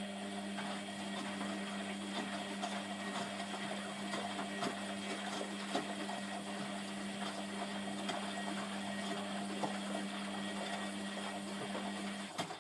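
Hotpoint WMF720P washing machine's motor-driven unit, most likely the drain pump, running at a steady pitch with many small crackles over its hum, then cutting off abruptly near the end.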